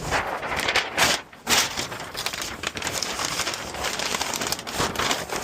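Packing paper being crumpled and crinkled by hand, a continuous crackling rustle with a few louder crunches near the start.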